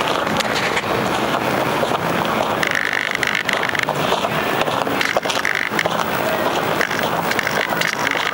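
Steady rough rushing and rattling noise picked up by an FPV model plane's onboard audio, with a high whine that comes and goes several times.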